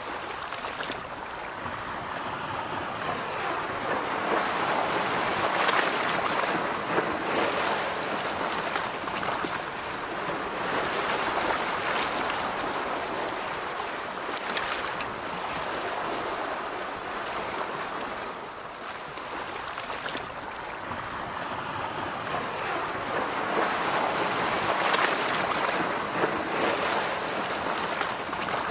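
Ocean surf breaking on a beach, the wash swelling and fading in slow surges several seconds apart, with some wind.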